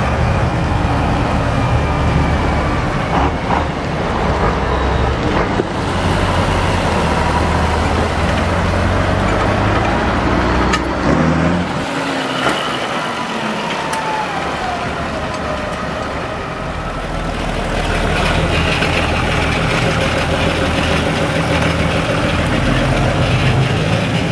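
Diesel tractor engines running as several tractors, among them a Massey Ferguson, John Deeres and a Fiat, drive past one after another. The engine drone eases off for a few seconds about halfway through, then builds again as the next tractors come by.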